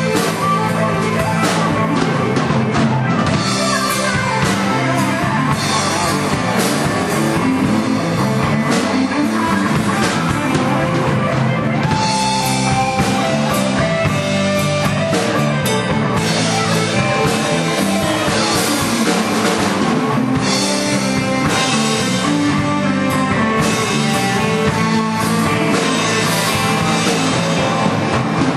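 Live rock band playing at a steady, loud level, with electric guitar, bass guitar and a drum kit.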